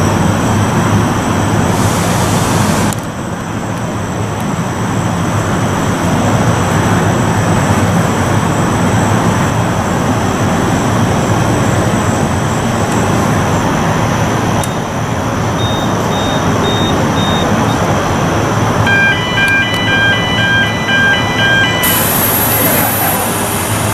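Steady loud machinery noise from a roller coaster's train-storage shed and transfer area. Short beeps sound around the middle, and a chiming warning beeper of several tones repeats for about three seconds near the end.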